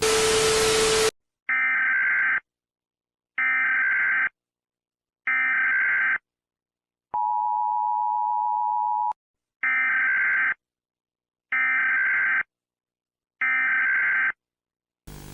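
Emergency Alert System tones: a one-second burst of static, then three short bursts of SAME header data about two seconds apart, a two-second two-tone attention signal, and three more data bursts.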